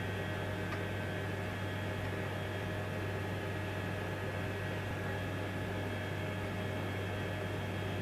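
Steady low hum and whir of the space station's cabin fans and equipment, with a few faint steady tones above it.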